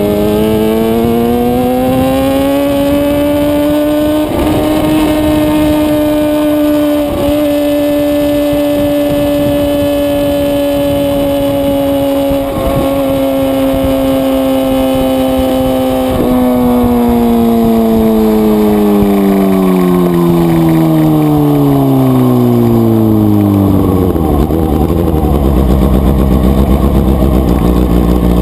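Suzuki GSX-R600 inline-four motorcycle engine climbing in revs for a few seconds, then holding a steady pitch broken by a few brief dips. From about halfway it slows gradually and settles to a low steady note near the end.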